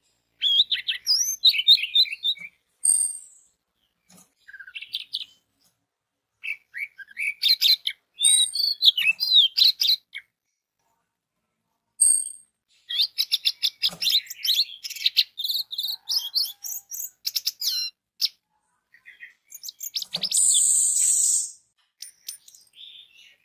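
Orange-headed thrush (anis merah) singing: fast, varied runs of sweet whistles and chattering notes in phrases broken by short pauses, with one harsh, hissing note lasting about a second near the end.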